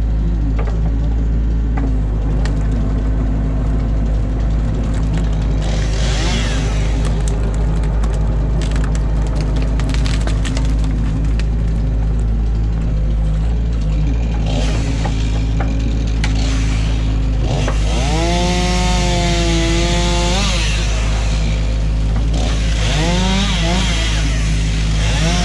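Excavator's diesel engine running steadily under load as the machine works through a beaver dam, with cracking and snapping of sticks and branches. A whine that rises and falls comes twice, about two-thirds of the way in and again near the end.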